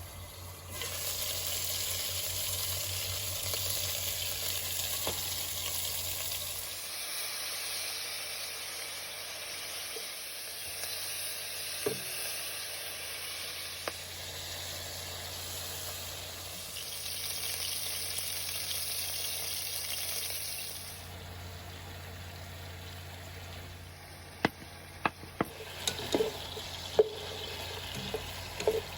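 Chicken wings sizzling as they fry in a hot pan, the hiss loud for about twenty seconds and then dying down. A few sharp clinks come near the end.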